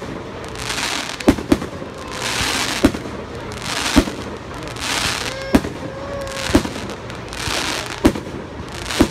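Aerial firework shells bursting in quick succession at a fireworks display: sharp bangs about once a second, with a hiss between them.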